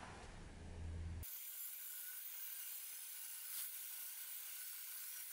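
Band saw cutting a thick block of dry beech along the outline of an axe handle: a steady hiss of the blade through the wood, starting about a second in.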